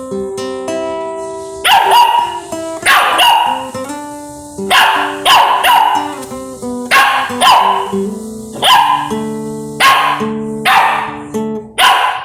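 Acoustic guitar playing single notes and chords while a dog barks over it about a dozen times, often two barks in quick succession, reacting to the guitar.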